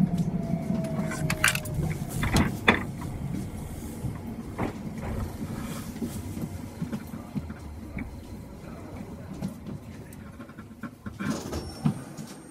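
Chikuho Electric Railway train slowing into a station and stopping: the motor whine slides down in pitch over the first second or so, with a wheel rumble and a few sharp clacks from the rails. After that the running noise fades as the train comes to rest.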